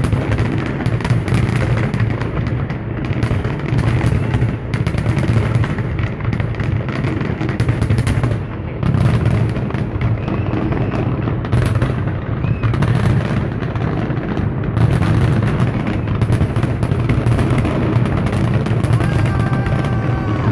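Dense aerial fireworks barrage: a continuous rapid crackle of many shell bursts over a heavy low rumble, loud, with no pause.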